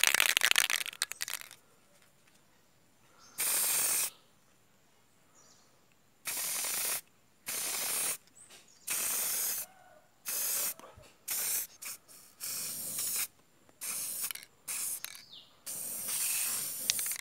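Aerosol spray paint can spraying in short bursts: about a dozen hissing puffs, each under a second to about a second long, with short pauses between them.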